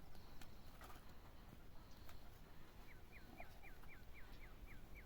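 A small bird calling: a quick run of about nine short notes, each sliding down in pitch, starting about three seconds in, faint over a low background rumble.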